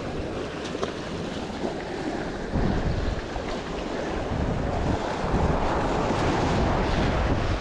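Sea waves washing and breaking over jetty rocks, mixed with wind buffeting the microphone. The surf gets louder about a third of the way in.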